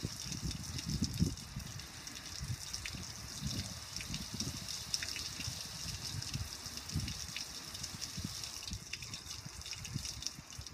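Water from a garden hose spray nozzle hissing steadily onto a metal gas grill, splashing and running off onto the patio.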